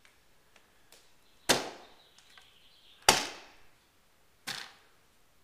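A broom being swung and struck: three sharp swishing hits about a second and a half apart, each fading within about half a second.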